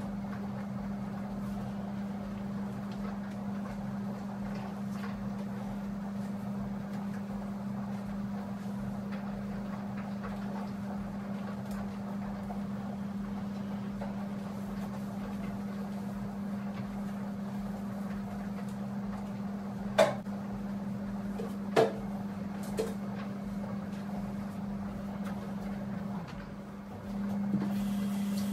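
A steady low hum runs through, dropping out for about a second near the end before returning. Two sharp knocks come about two-thirds of the way through.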